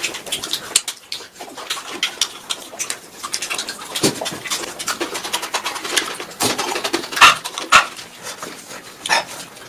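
A person eating noisily close to the microphone: wet chewing, lip-smacking and sucking, a dense run of short clicks with a couple of louder smacks about seven seconds in.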